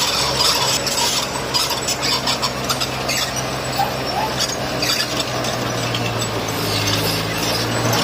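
Heavy diesel earthmoving machinery running with a steady low engine drone, over continuous scraping and grinding of stone. The engine note grows stronger near the end.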